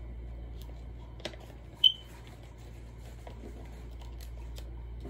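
Small scissors snipping a clear plastic sticker-label sheet: a run of light clicks and snips, with one sharp, louder snip about two seconds in, over a steady low hum.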